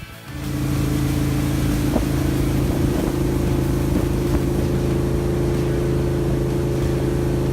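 Boat engine running steadily at speed under a constant rushing noise, holding one even pitch throughout.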